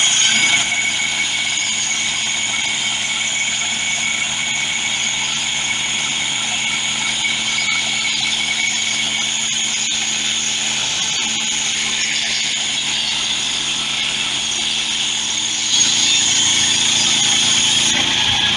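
Woodland Mills portable band sawmill running, its gas engine under load while the band blade cuts through a small log. Steady, getting a little louder near the end.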